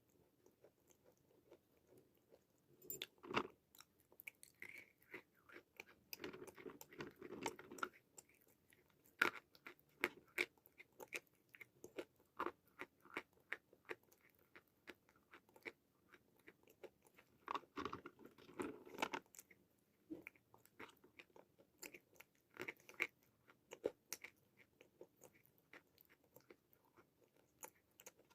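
Close-up biting and crunching of chunks of white khadi chalk, with repeated brittle cracks and chewing in clusters of bites.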